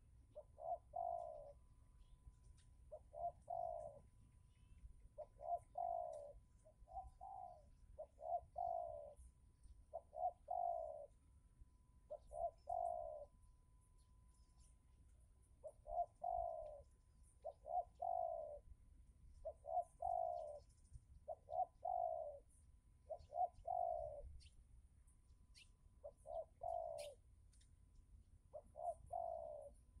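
Spotted dove (tekukur) cooing: short phrases of a few coos, each phrase repeated about every two seconds.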